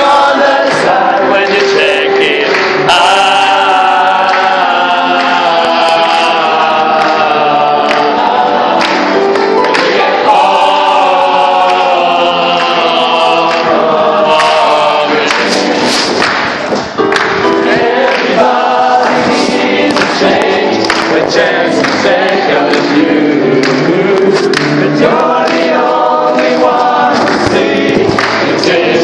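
A choir singing, many voices together close to the recording, with a brief break in the sound a little past the middle.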